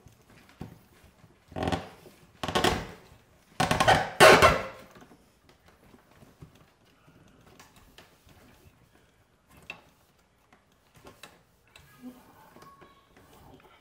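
Spruce root lacing drawn through awl holes in birch bark while stitching bark panels: four scraping pulls in the first five seconds, the last two longest and loudest, then faint ticks and rustles of handling.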